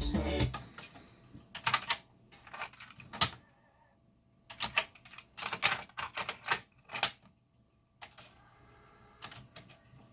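A series of sharp mechanical clicks and clunks in several clusters with short silent gaps, typical of a Nakamichi Cassette Deck 1's transport controls and mechanism being operated. The music playing through the deck stops about half a second in.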